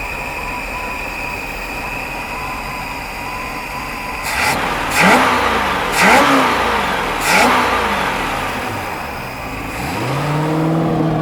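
Boat engine with a freshly rebuilt carburetor running steadily, now running on its own rather than flooding with raw fuel. It is revved three times in quick succession about halfway through, each rev rising and falling back. Near the end a steady, higher hum rises in.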